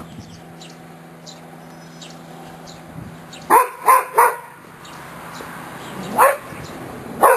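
Adult boxer dog barking: three quick barks about three and a half seconds in, then two more single barks near the end.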